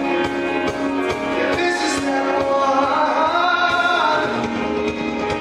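Male lead vocalist singing a Broadway show tune live over a pit band, with a steady drum beat under the melody, heard from the theatre audience.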